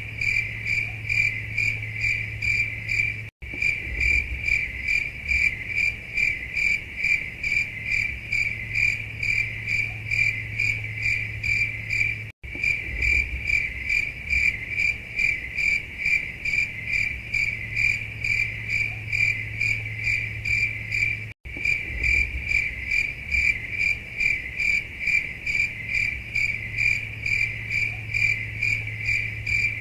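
Crickets chirping in a steady, rapid, high-pitched rhythm, the stock sound that stands for an awkward silence. The chirping drops out for an instant about every nine seconds, where the recording loops.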